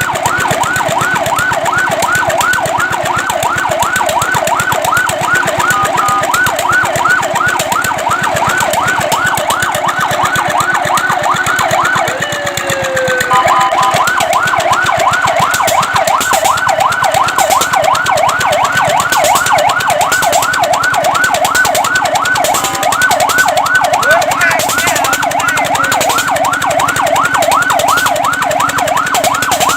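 Fire truck siren in a fast yelp, its pitch sweeping up and down about three times a second. A little under halfway through it breaks off for about a second, with a short falling tone, then starts yelping again.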